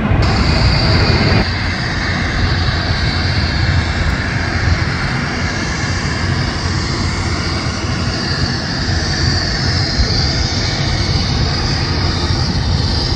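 Airbus A320neo jet airliner at takeoff thrust: its engines run with a steady rushing roar and a high fan whine as it speeds down the runway and lifts off near the end. Before that, about a second and a half of louder engine noise from a climbing Airbus A321 cuts off abruptly.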